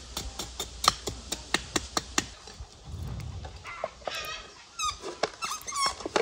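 A knife cutting into a wooden stick in quick, sharp strokes, about four a second, for the first two seconds; from about four seconds in, chickens clucking.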